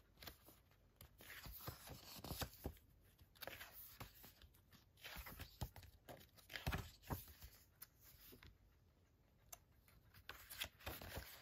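Faint, scattered rustles and taps of paper pages being handled and turned by hand as a booklet is leafed through.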